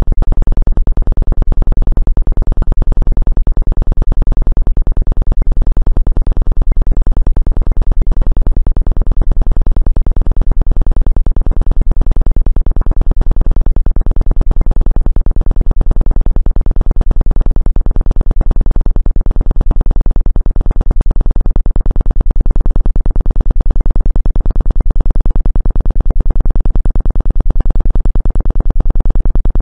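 A loud, low synthesized Rife-frequency tone, played for sciatica relief, pulsing rapidly and evenly without change.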